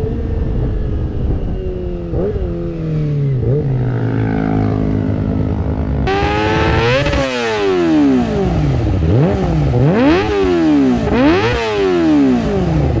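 Kawasaki Ninja ZX-25R four-cylinder engine through an Akrapovic exhaust. At first it runs on the move with its note slowly falling and two short blips, as the bike slows. About six seconds in, the parked bike is revved hard about four times, each rev climbing quickly and falling back.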